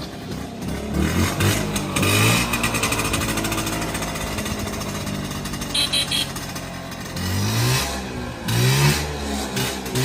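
Vespa SS90's small single-cylinder two-stroke engine running and being revved up and down, its pitch rising and falling a few times, most clearly about a second in and again near the end.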